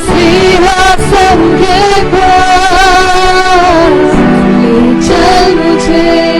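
Hindi Christian worship song: a singer's melody, with wavering, drawn-out sung notes over a sustained instrumental backing.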